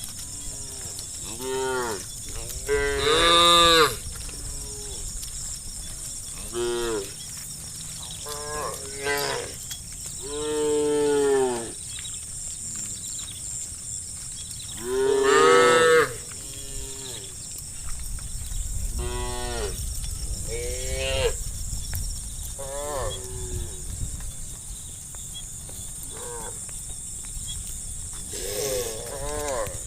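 A herd of cattle mooing: a dozen or so separate moos from several cows at different pitches, some short and some drawn out, the loudest about 3, 11 and 15 seconds in. A steady high hiss runs underneath.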